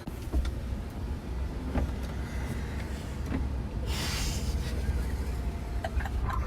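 Car on the move, a steady low rumble, with a brief hiss about four seconds in.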